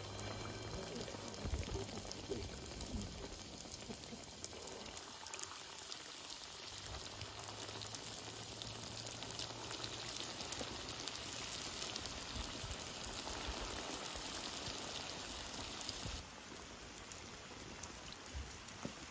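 Hot oil sizzling and crackling around potato-stuffed yeast-dough pies deep-frying in a pan, a dense steady patter of small pops. It turns softer about sixteen seconds in.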